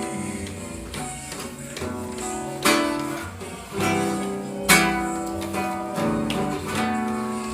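Acoustic guitar strummed, playing an instrumental introduction to a trova song. Two sharp accented strums stand out, about two and a half and four and a half seconds in.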